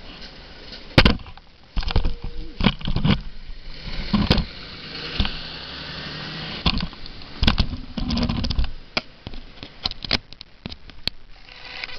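Irregular knocks, rubs and scrapes close to the microphone, as a handheld camera is moved and handled, over a low steady background noise.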